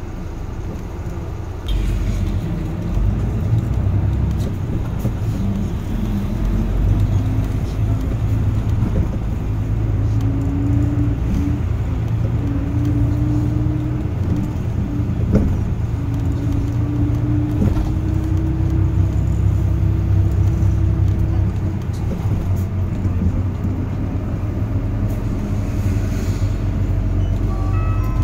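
City bus running, heard from inside the cabin: the engine rumble grows louder about two seconds in, then its pitch climbs slowly through the middle as the bus gathers speed. A short run of electronic tones sounds at the very end.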